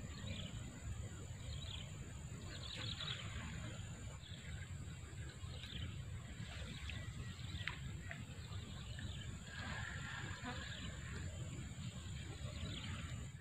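Birds calling now and then with short falling chirps, over a steady low rumble and a thin, steady high-pitched tone.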